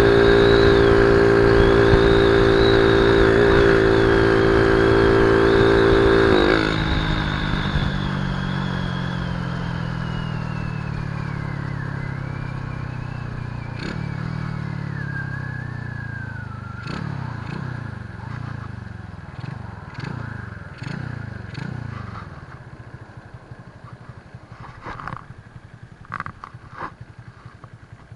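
Honda C70 Cub's 122cc single-cylinder four-stroke engine running at high revs at speed for about six seconds. The throttle then closes and the engine note falls steadily as the bike slows, with a few short rises and dips as it comes down toward idle near the end. The owner judges the carburettor short of air after this run.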